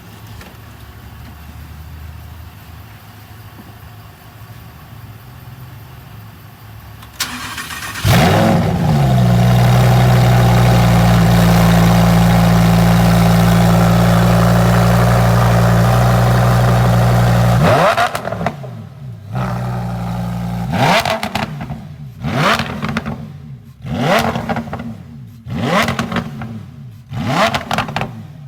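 Lamborghini Huracán Evo's naturally aspirated V10 cranking and firing up about eight seconds in with a loud flare, then holding a steady high idle. From about eighteen seconds on it is blipped in a string of quick, sharp revs that rise and fall back.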